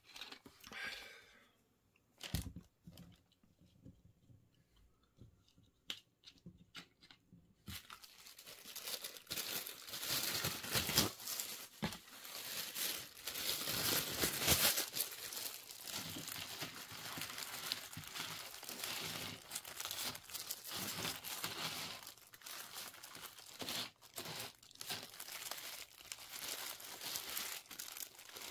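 Paper wrapper crinkling and rustling as a burrito on it is handled: a few scattered clicks at first, then steady crinkling from about eight seconds in.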